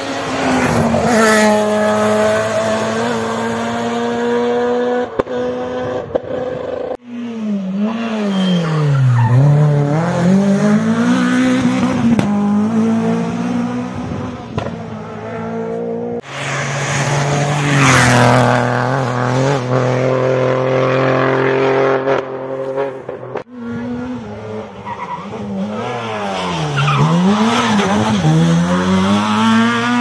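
Rally cars driving hard past on a tarmac stage, one after another in four passes with abrupt cuts between them. The engines rev high, their pitch dropping and climbing again several times as they change gear.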